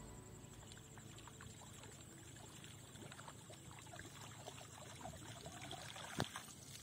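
Faint trickling and light splashing on calm water as a topwater frog lure is worked across the surface, with many small scattered ticks and one sharper click near the end.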